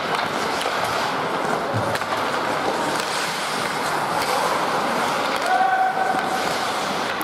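Ice hockey skates scraping and carving on the ice amid the steady noise of the rink. A voice calls out briefly about five and a half seconds in.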